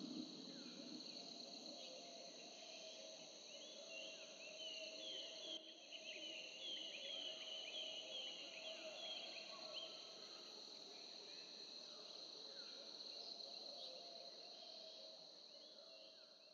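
Faint insect chorus: a steady high drone with quick repeated chirps over it, fading out near the end.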